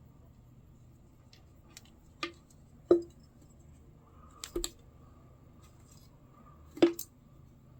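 Several sharp, separate clicks and snaps of hand tools or workpieces being handled, a few seconds apart, the loudest about three seconds in and near the end.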